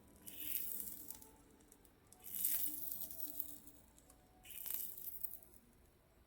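Soldering paste sizzling against the hot tip of a freshly repaired 35-watt soldering iron, in three short hissing bursts. It shows that the iron heats again after its repair.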